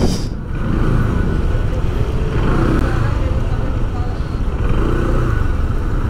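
Steady street traffic noise: vehicle engines running and tyres rolling on the road.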